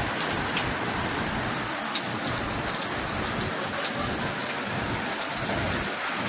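Steady heavy rain falling, with many sharp individual drop hits on a surface.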